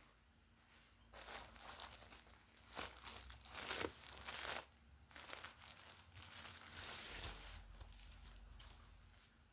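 Packaging crinkling and tearing as it is opened, in irregular rustling bursts from about a second in until near the end.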